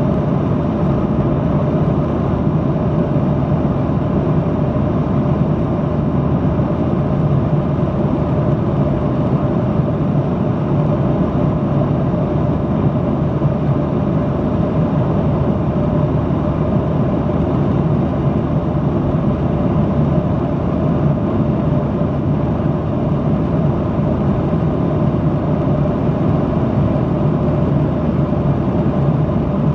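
Steady cabin noise of a Boeing 737-800 in cruise: the rush of airflow and the drone of the engines, with a few constant hum tones, heard inside the cabin.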